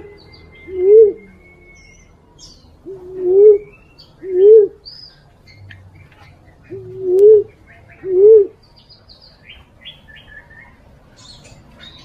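Female fruit dove (walik) lure call: pairs of low hoots, each rising then falling, about a second apart, with the pairs repeating every three seconds or so. It is the call hunters play to draw in males. Small birds chirp faintly behind it.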